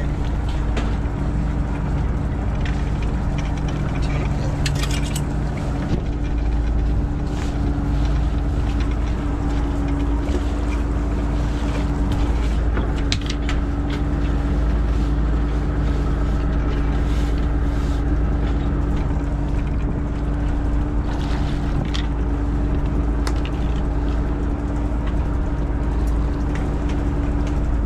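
Steady drone of a fishing boat's engine and hydraulic longline hauler while the longline is hauled in: a low rumble with a steady hum, and scattered light clicks and knocks from the gear coming aboard.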